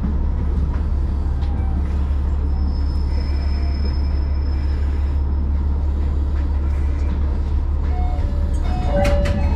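Single-car AR300-series diesel railcar running slowly into a station and coming to a stop, with a steady low engine rumble. About nine seconds in come a few sharp clicks and some short tones.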